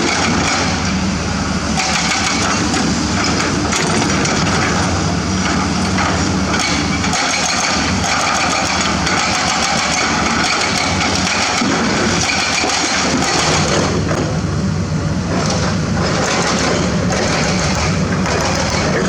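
Heavy diesel excavator running steadily under load while digging, with repeated knocks and clatter throughout.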